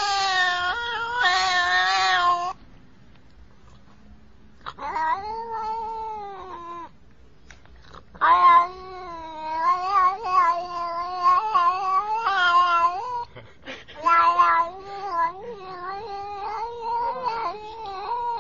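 Domestic cat yowling in several long, drawn-out, wavering calls, with short pauses between them.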